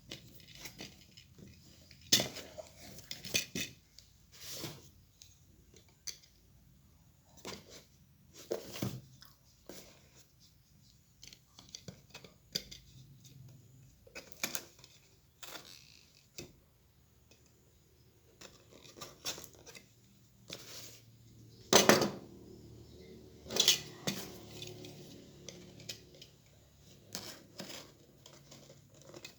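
Unboxing handling: scattered clicks, rustles and light metallic knocks as a stainless steel V60 coffee dripper and its packaging are handled. Two louder knocks about two-thirds of the way through ring briefly like metal being set down.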